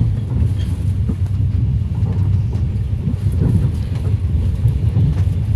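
Steady low rumble of a moving passenger train, heard from inside the carriage, with faint knocks.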